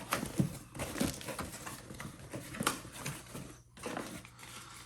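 Skateboard wheel packaging being handled and opened: scattered rustles, taps and clicks of box and wrapping.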